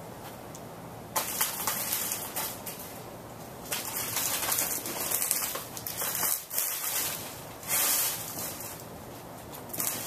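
Hunter Original oil-bath stack-motor ceiling fan running at speed: a steady low hum under irregular gusts of rushing air from the spinning blades.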